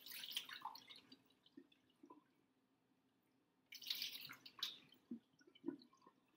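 Water being poured from a plastic mixing bowl into a measuring cup over a sink, measured out cup by cup. There are two short pours, one at the start and one about four seconds in, with drips and small splashes between and after.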